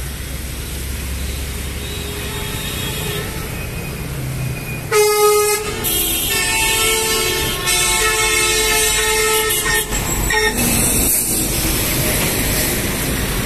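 A loud vehicle horn blows for about five seconds, starting about five seconds in, its pitch shifting a couple of times, over a low steady traffic rumble; a rushing noise follows after it stops.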